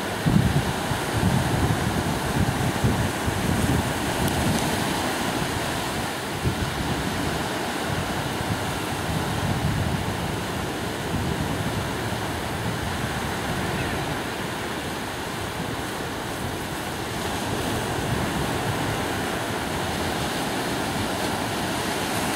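Small surf breaking and washing up a sandy beach in a steady wash, with wind buffeting the microphone in gusts during the first several seconds.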